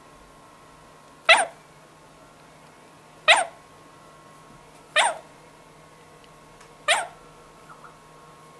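African grey parrot giving four short, loud calls about two seconds apart, each a quick downward-sweeping squawk that falls from high to low pitch.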